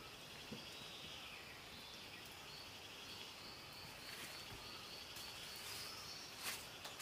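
Faint forest ambience of insects trilling in an evenly pulsed high tone, with a few light clicks and a sharper snap about six and a half seconds in.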